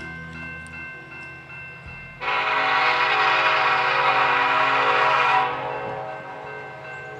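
Diesel freight locomotive horn, one long blast of about three seconds starting about two seconds in, over a low steady drone.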